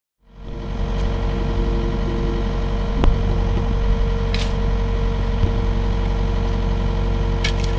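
Kubota KX080 excavator's diesel engine running steadily at idle, with a single sharp click about three seconds in.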